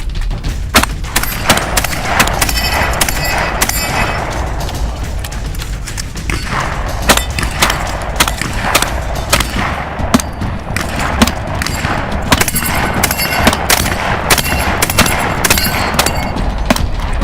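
Many shotgun shots fired in quick, irregular strings over a steady low rumble.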